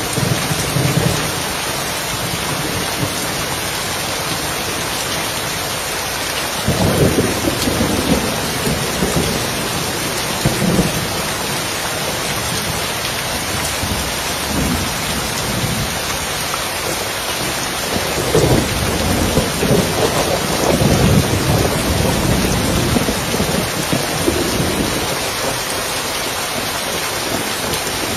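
Steady heavy rain pattering on a roof, with rolls of thunder. One rumble starts suddenly about a quarter of the way in, and a longer, louder rumble swells and fades through the second half.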